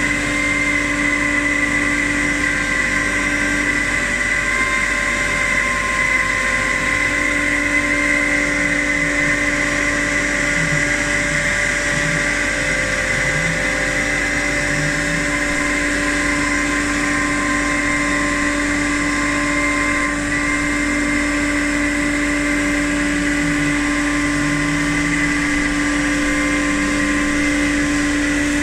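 CNC router running steadily: a continuous machine whine with a strong high tone, and lower tones that wander up and down at times.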